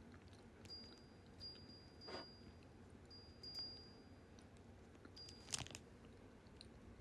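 Near silence with faint, thin high-pitched tones that sound briefly again and again, and a few small clicks, one sharper click about five and a half seconds in.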